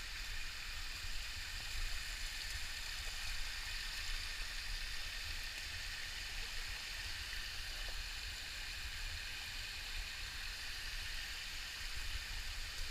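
Warm hot-spring stream water rushing and splashing over rocks as a steady hiss, with a steady low rumble underneath.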